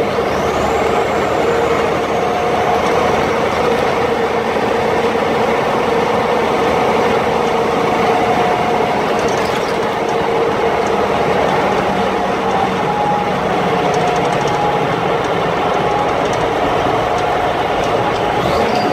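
M35A2 2½-ton military cargo truck driving at steady road speed, heard from inside its cab: its multifuel turbo-diesel and drivetrain running loudly and evenly under tyre and road noise, with a constant whine.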